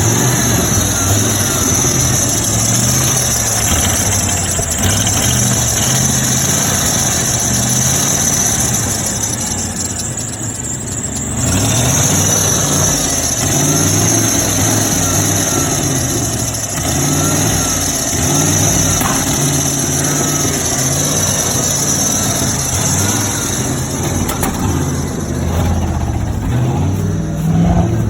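1995 Ford F-150 engine running, its note wavering up and down in pitch; the owner says the alternator is bad.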